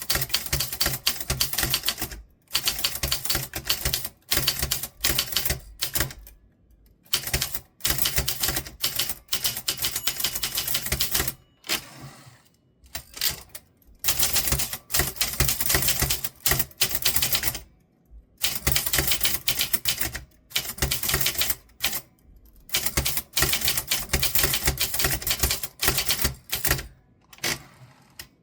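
Typewriter being typed on quickly: fast runs of key strikes broken by short pauses every second or few.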